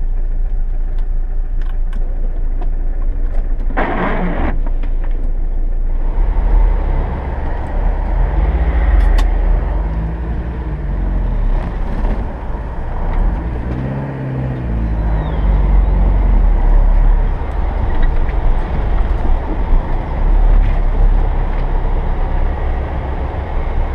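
GAZelle van's engine pulling away under load on a dirt track, getting louder about six seconds in, its pitch rising and falling as the van drives out without the wheels spinning. A short burst of noise about four seconds in.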